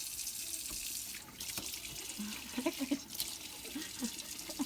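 Water running steadily from a tap and splashing into a sink.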